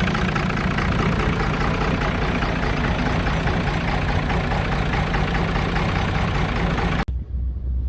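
5.9 L 24-valve Cummins inline-six diesel idling steadily with a chugging beat, running on a hot-wired VP44 injection pump with the engine computer bypassed. About seven seconds in the sound cuts off abruptly to a low hum.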